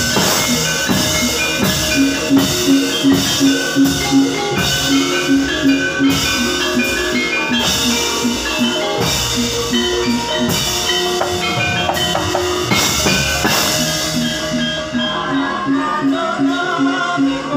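Javanese gamelan playing the talu overture of a wayang kulit show: a quick, even run of pitched metallic strokes from the gong-chimes and metallophones over drum beats. A bright metallic clatter runs beneath and stops a few seconds before the end, and a singing voice comes in near the end.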